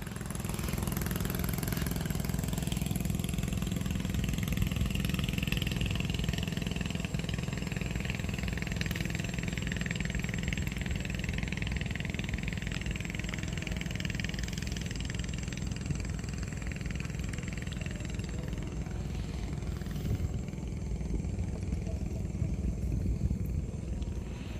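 An engine running steadily in the background, a continuous low drone, with a thin steady high tone above it that fades out about two-thirds of the way through.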